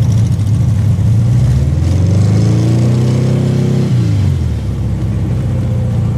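Volkswagen Beetle's engine running, revved up about a second and a half in, climbing for a couple of seconds and then falling back to idle about four seconds in.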